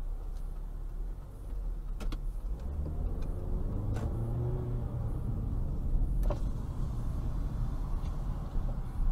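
Car engine and road noise heard from inside a moving car, the engine note rising as it accelerates about three seconds in, with a few light clicks.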